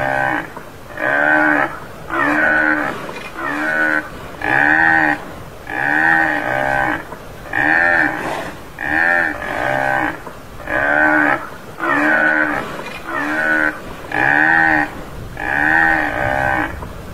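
Tamaraw (Mindoro dwarf buffalo) calling: short bovine bawls repeated about once a second, each rising then falling in pitch.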